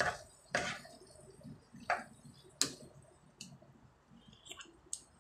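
Pot of jackfruit stewing in coconut milk simmering on a gas stove, giving scattered soft pops and clicks, about seven at uneven intervals.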